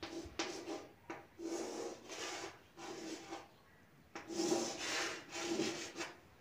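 Chalk scraping on a blackboard as lines and test-tube outlines are drawn: a run of about seven separate strokes, each lasting from a fraction of a second to about a second, with short pauses between them.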